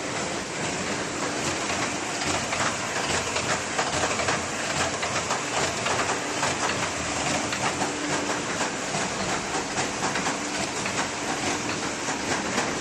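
Paper lid making machine running, a steady, rapid mechanical clatter of many quick clicks.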